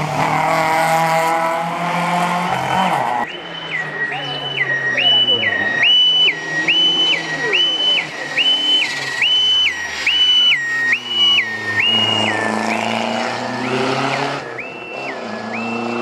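Two-tone siren of a rally course car, a Lancia Delta with a roof beacon, switching high and low about once a second as the car approaches and passes. Its engine note dips as it goes by about ten seconds in. A loud engine opens the stretch before the siren starts.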